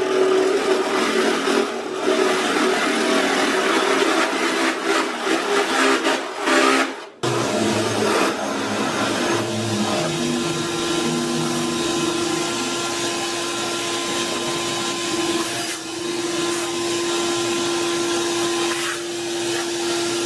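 Bench drill press running, a large bit boring down into a briar pipe block, with a shop vacuum running at the work to pull away the chips. The noise is rough and uneven at first, drops out for a moment about seven seconds in, then settles into a steady hum.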